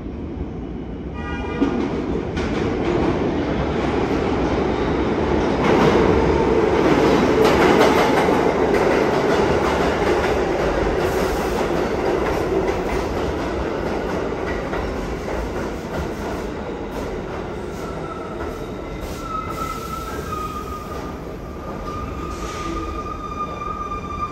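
Pullman Standard R46 subway train pulling into the station: the cars rumble and clatter over the rails, loudest about six to eight seconds in, then ease off as the train slows. A thin, high steady whine comes in near the end as it comes to a stop.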